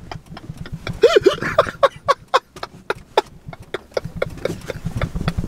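Men laughing hard in quick, breathy bursts, about five a second, with a few voiced 'ha' sounds about a second in.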